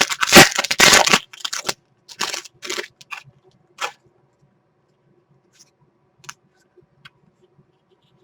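Foil trading-card pack wrapper crinkling and tearing in a run of short bursts over the first four seconds, the densest right at the start, followed by a few faint ticks.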